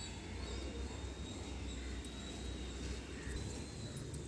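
Quiet outdoor ambience: a steady low rumble with a faint, thin, high steady tone over it.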